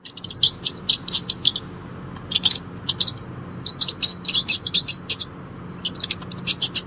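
Mice squeaking: quick runs of short, high-pitched squeaks that come in several groups, over a faint steady low hum.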